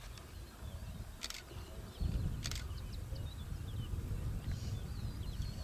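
Birds chirping in the background, with two short hissing bursts about a second apart near the start, over a low rumble that grows louder about two seconds in.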